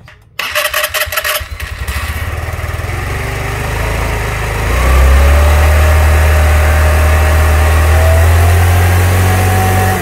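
Carburetted automatic scooter engine started on its electric starter: a second or so of cranking, then it catches and runs. About five seconds in it gets louder and holds a higher steady speed with a slowly rising whine.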